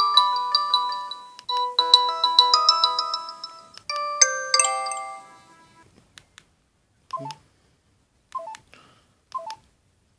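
LG GS101 mobile phone playing short previews of its polyphonic electronic message tones through its small built-in speaker, three melodies one after another, the last ending in a quick rising run of notes. Then a few faint button clicks and three short two-note keypad beeps about a second apart.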